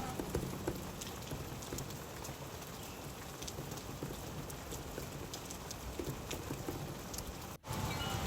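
Steady rain falling, with scattered drops ticking sharply on a surface. About seven and a half seconds in, the sound cuts out for a split second, then resumes slightly louder with more low rumble.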